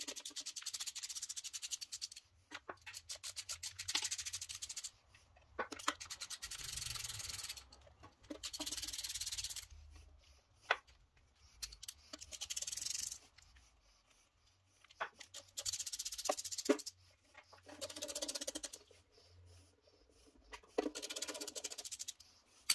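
Hand ratchet clicking in quick runs, about eight bursts of a second or two each with short pauses between, as bolts are spun out of a Mopar 361 V8's timing cover. A few single sharp clicks fall between the runs.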